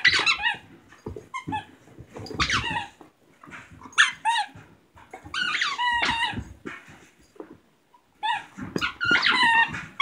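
A dog whining in a series of high, wavering cries, about six of them with gaps between, while she tries to reach a squeaky toy stuck out of reach under the furniture.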